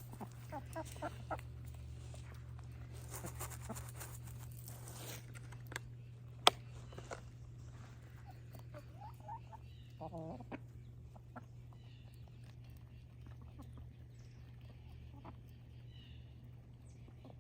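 Domestic hens making soft clucks and little trilling calls while they eat, with scattered light pecking taps and one sharp tap about six and a half seconds in. A steady low hum runs underneath.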